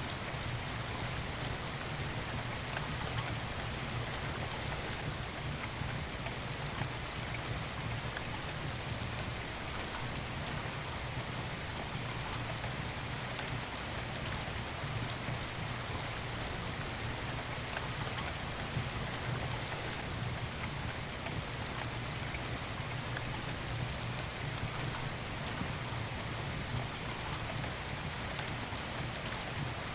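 Steady rain falling, an even hiss with a deeper rumble beneath it, and a few sharp ticks standing out, the clearest about 25 seconds in.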